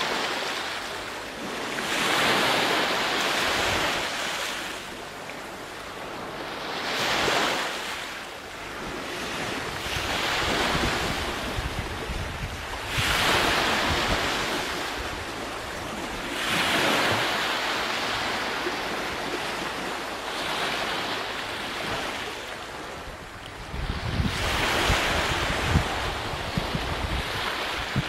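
Ocean surf: waves breaking and washing in, swelling and ebbing every three to four seconds, with a louder low rumble near the end.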